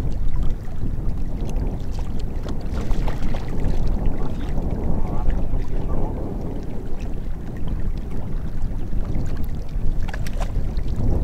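Wind rumbling steadily on the microphone, with small waves lapping against the rock shore of the lake. A few short clicks near the end.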